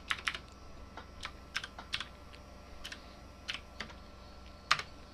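Scattered light clicks and taps from working a computer's controls at a desk, irregular, with a slightly louder click near the end, over a faint steady hum.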